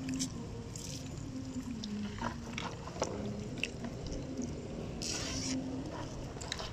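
Wet mesh fish trap being lifted from the water and handled over a plastic tub: water dripping and splashing, with scattered rustles and clicks from the net. A short splash comes about five seconds in.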